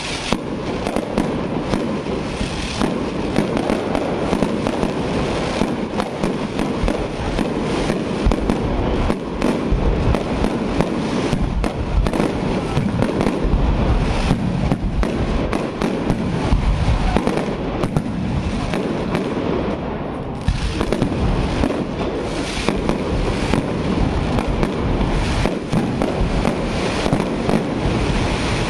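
Aerial fireworks display firing continuously: a dense run of bangs and crackles from launching and bursting shells, many in quick succession.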